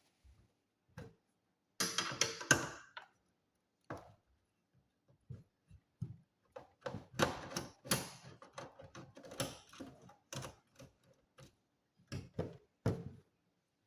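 Irregular sharp clicks, taps and short bursts of clatter from hands and tools handling the plastic case and parts of an all-in-one desktop PC.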